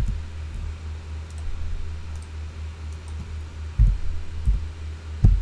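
Computer keyboard typing and mouse clicks while a value is entered, over a steady low electrical hum, with a few short dull low thumps in the second half.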